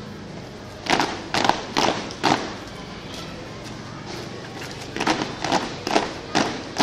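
A squad of children stamping their feet in unison on paving during marching drill: four sharp stamps about half a second apart about a second in, then another run of stamps at the same pace from about five seconds in.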